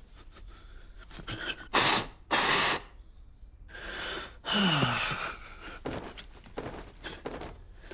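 A short sharp intake of breath, then a loud, hissy sneeze about two and a half seconds in, followed by breathy gasping with a falling voiced groan.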